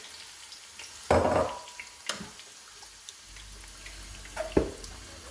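Water being poured to rinse out a blender jug into the sauce pan, with two louder clatters, about a second in and near the end.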